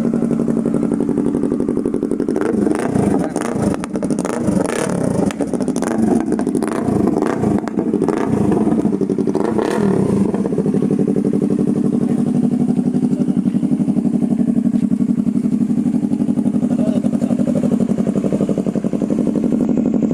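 Yamaha R3 parallel-twin motorcycle engine idling steadily through an aftermarket exhaust, with a run of clattering knocks from about two to ten seconds in.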